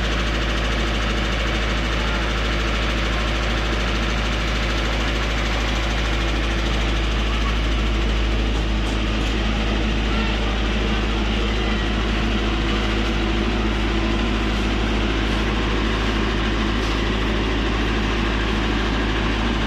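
50 kVA diesel generator set in a sound-proofed enclosure running steadily at constant speed, a continuous even engine hum with a strong low drone.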